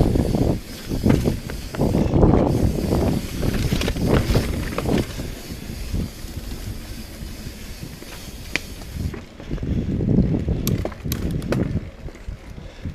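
Mountain bike riding a dirt trail: wind buffeting the camera microphone in uneven low surges over tyre and trail noise, with a few sharp clicks and rattles from the bike in the second half.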